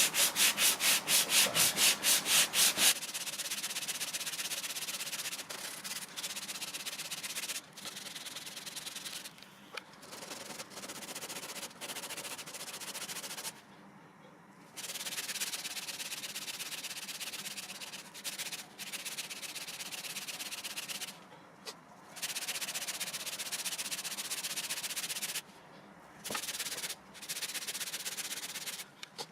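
Sandpaper rasping over a hardened filler patch on an MDF door. It starts with quick back-and-forth strokes, about four a second, then goes on as a steadier scrubbing broken by several short pauses.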